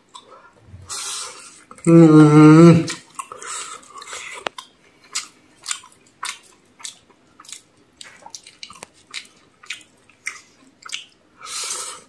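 A person chewing a mouthful of fried rice, with many small wet mouth clicks and lip smacks. About two seconds in comes a long hummed 'mmm'.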